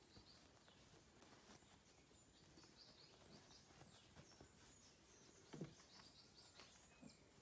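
Near silence, with faint distant bird chirps and one soft bump about five and a half seconds in.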